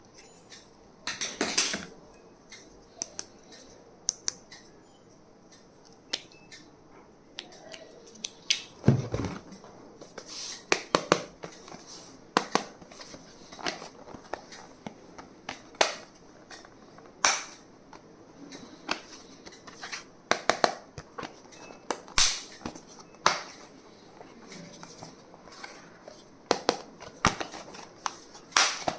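Stationery and its packaging being handled and unpacked: irregular clicks, taps and short rustles of plastic and small items being picked up and set down.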